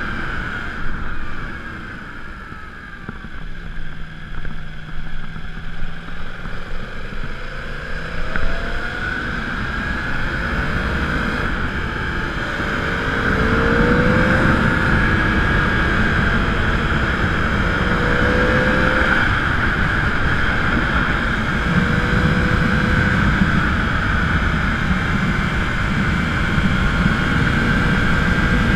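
Riding noise picked up by a bike-mounted action camera: a steady rumble and rush, with a motor whose pitch rises and levels off several times, as when accelerating.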